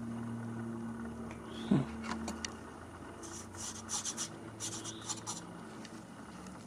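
Short scratching and rubbing sounds, a cluster of brief scratchy strokes in the middle, over a low steady hum.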